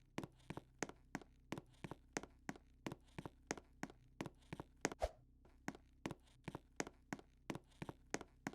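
A rapid, slightly uneven series of sharp knocks, about three a second, over a steady low hum, with one heavier thump about five seconds in.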